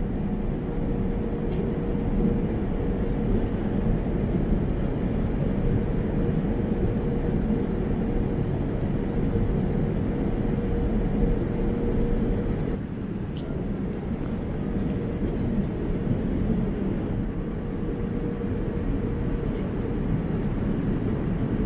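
Steady airliner cabin noise aboard a Boeing 787-9: an even rushing drone of airflow and engines, with a faint steady hum that drops out about halfway through.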